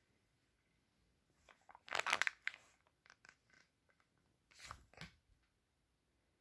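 A crumpled foil pouch being crinkled and crushed in a hand. A loud crinkling bout comes about two seconds in, then a few small crackles, and a second shorter bout near five seconds.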